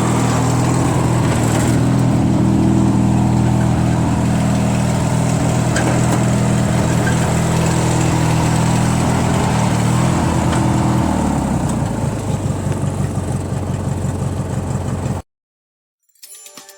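Yard Machines lawn tractor's 13.5 hp Tecumseh engine running steadily. About eleven seconds in it slows to a lower, uneven beat, and the sound then cuts off suddenly.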